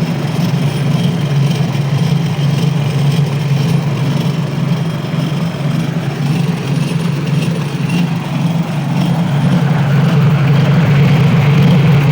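7 hp petrol engine running steadily, driving a homemade walnut-hulling machine; it gets a little louder about ten seconds in.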